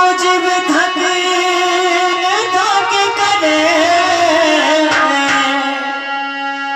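A singer holds a long, sliding vocal line into a microphone over steady held harmonium chords, in a Malwa folk devotional song.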